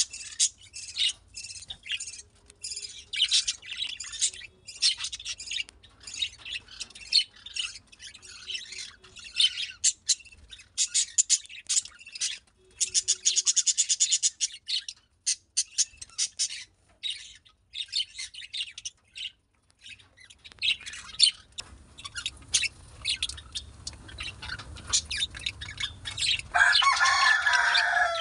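Budgerigars chirping and chattering in quick, high notes, with a louder burst of squawky chatter near the end.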